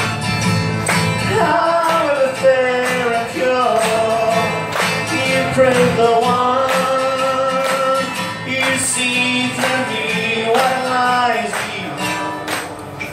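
Live acoustic rock performance: a sung melody with long held notes over two strummed acoustic guitars.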